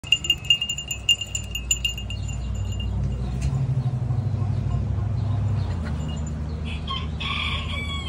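A small bell jingles with several strikes over the first few seconds, over a steady low hum. Near the end a tom turkey gives a short rattling gobble that falls in pitch.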